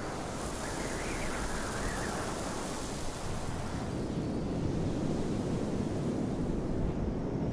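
Steady rushing wind.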